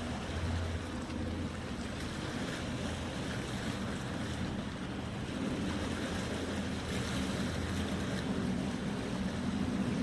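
Small sea waves washing against shoreline rocks, with wind on the microphone and a low steady hum underneath.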